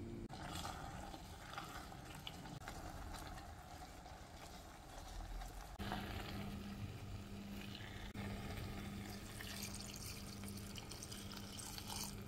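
Dried figs simmering in red wine in a stainless steel pot, stirred with a silicone spatula: wet stirring and bubbling sounds. Near the end red wine is poured into the pot. A steady low hum runs underneath from about halfway.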